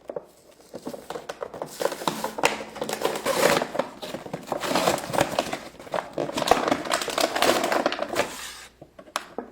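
Toy packaging being opened by hand: plastic crinkling and rustling with many small crackles, starting about a second in and stopping near the end.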